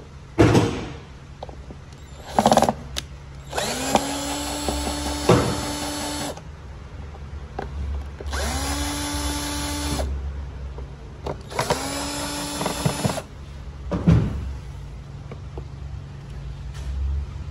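Cordless drill with a screwdriver bit driving the screws of a plastic air filter housing cover: three short runs of motor whine, each rising in pitch and then holding steady. A few short knocks and clatters come between the runs.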